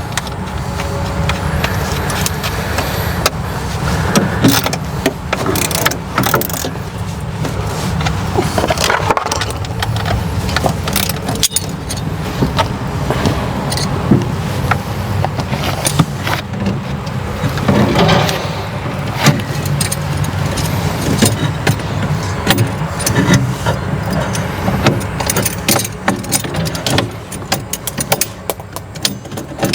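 A vehicle engine running steadily, with many metallic clinks and rattles over it.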